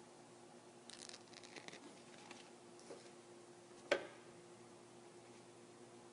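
Faint crinkling and light ticks of plastic-backed adhesive strips being handled and set down on a phone frame, then one sharp click about four seconds in, over a low steady hum.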